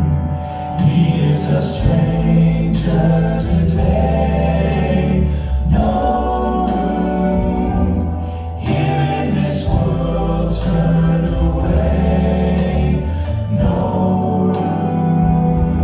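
A vocal group singing a gospel-style song in harmony over a steady bass-heavy instrumental backing.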